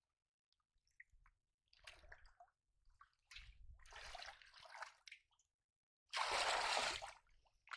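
Hands groping and stirring in shallow muddy water and mud: irregular splashing and squelching, starting after a short silence, with the loudest splash about six seconds in.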